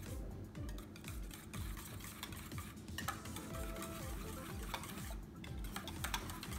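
A metal utensil stirring thick yogurt in a stainless steel bowl, scraping and clinking against the sides of the bowl, over background music with a steady beat.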